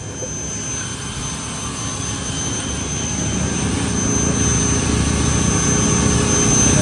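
Pressure washer running steadily, its motor humming under the hiss of the water jet, growing slowly louder.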